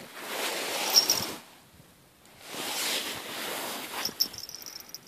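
Wind gusting across the microphone in two swells of rushing noise, the second starting about two and a half seconds in. Near the end come a few faint high jingles from the twin bite-alarm bells on the ice-fishing rod tip.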